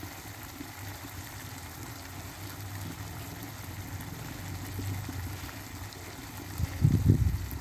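Mutton frying down in a wok over a wood fire, with a steady low sizzling and bubbling. A brief low rumble comes near the end.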